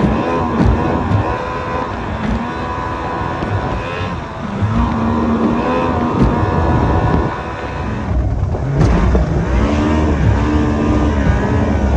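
Bullet 130 SV boat's outboard engine running at high speed, its pitch rising and falling as the boat rides over the chop, with rushing water and wind over it.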